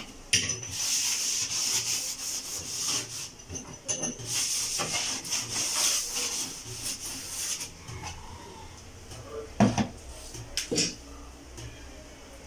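Steel-wool scourer scrubbing the metal top of a gas stove: a steady rasping that breaks off briefly near four seconds and stops after about seven and a half seconds. A couple of sharp knocks follow near the end.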